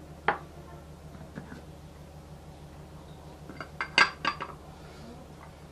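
A plastic food-chopper bowl and a glass mug being handled on a wooden board: one sharp knock just after the start, then a quick cluster of clinks and knocks about four seconds in.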